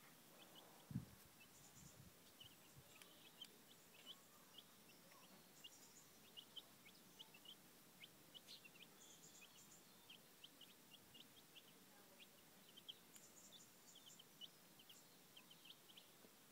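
Young Welsummer × Buff Orpington cross chicks peeping from under and beside their brooding hen, a steady run of short, high chirps, often several a second. A single low thump about a second in is the loudest sound.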